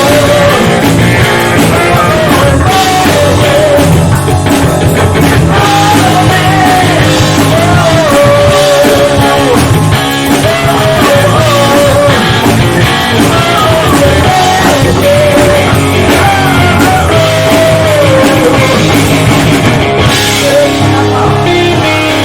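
Rock band playing live, with electric guitar, bass and drums under a wavering lead vocal line.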